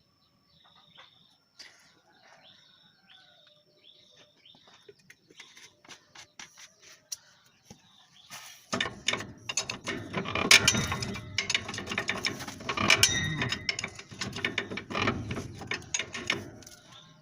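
Faint bird chirps, then from about nine seconds in a ratchet wrench clicking rapidly and loudly as a bolt is worked for about eight seconds.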